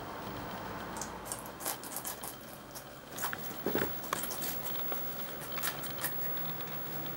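Guinea pigs biting and chewing red bell pepper: irregular crisp crunches, most of them clustered near the middle.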